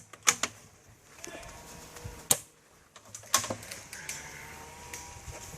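Airsoft guns firing single shots, heard as about five sharp cracks: two close together near the start, one a little after two seconds in, and a pair about a second later.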